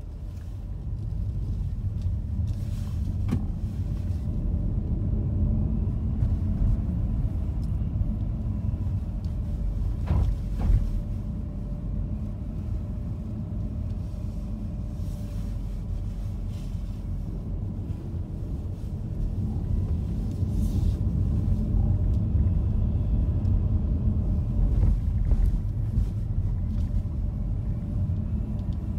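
A car driving: a steady low rumble of engine and road noise, with a few sharp knocks, the clearest about ten seconds in.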